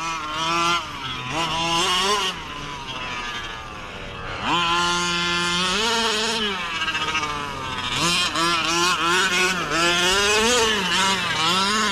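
A 1/5-scale gas RC car's two-stroke petrol engine revving up and down as the car is driven, its pitch climbing and falling again and again. The revs sag for a couple of seconds about two seconds in, then climb sharply again.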